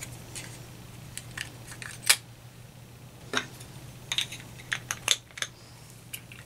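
A few light clicks and taps from the small trick box and its cap being handled as the cap is put on and the box is passed over. The sharpest click is about two seconds in, with a quick cluster of clicks a little past the middle, all over a low steady hum.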